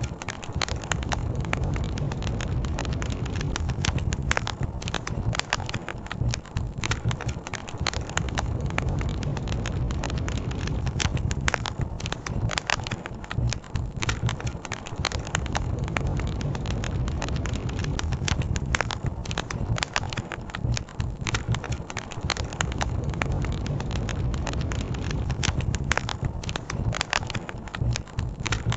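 Campfire crackling with many irregular sharp pops, over a steady low rush of river water.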